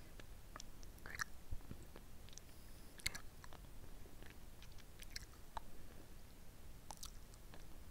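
Close-miked mouth sounds of a hard lollipop being sucked and licked: irregular wet smacks and small clicks of the candy against lips and teeth.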